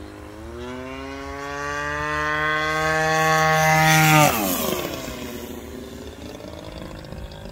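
Gas engine of a large RC aerobatic plane (AJ Aircraft Laser Z200, GP76 engine turning a 24x9 propeller) making a low pass. The engine note climbs in pitch and grows louder for about four seconds, then drops sharply in pitch as the plane goes by and fades away.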